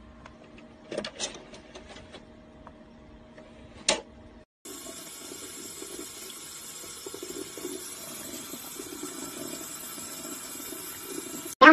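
A faint steady hum with a few light clicks, then, about four and a half seconds in, a tap running steadily into a sink.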